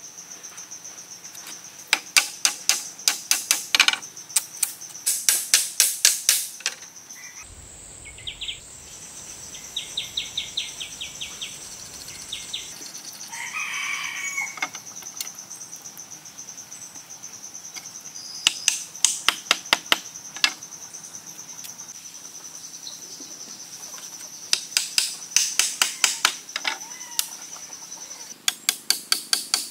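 Steady high insect trill, broken by repeated bursts of rapid sharp knocks, several a second for a couple of seconds at a time.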